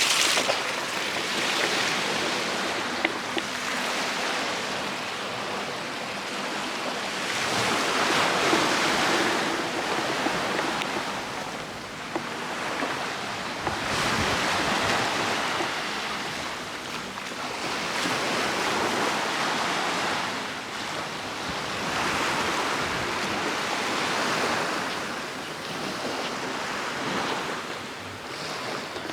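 Sea waves washing onto a beach, the surf swelling and falling back every few seconds.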